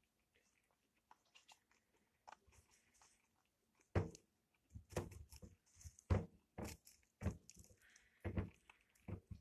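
Guinea pigs gnawing at a hanging dried-herb treat. Faint nibbling clicks at first, then from about four seconds in, louder crunches and knocks, one or two a second, as the treat is bitten and tugged on its string.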